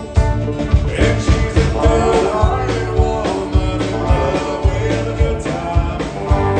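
Live country band playing with acoustic guitar, electric bass and drum kit, the drums keeping a steady beat.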